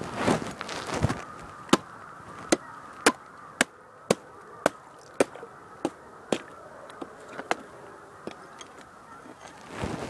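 A steel spade chopping into ice to free a muskrat trap: sharp strikes at about two a second, dying away after about six seconds. Geese honk faintly in the background.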